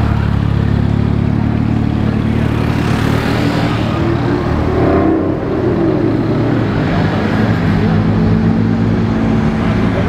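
Gemballa-modified Porsche 911's flat-six engine running at low revs as the car pulls slowly away, with a short rise and fall in revs about four to five seconds in. Other traffic engines run underneath.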